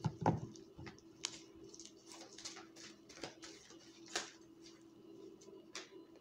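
Tarot cards being shuffled by hand: a run of short clicks and rustles, with a louder knock just after the start.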